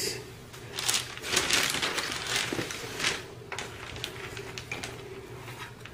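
Irregular rustling and light clicking handling noises, densest over the first few seconds and thinning out after. They come from paper and food being moved about as the biscuits are arranged. A low steady hum runs underneath.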